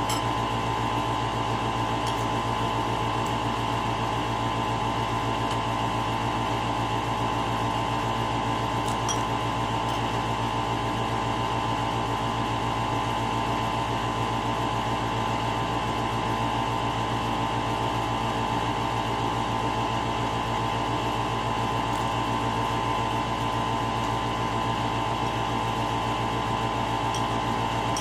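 Steady mechanical hum made up of several held tones.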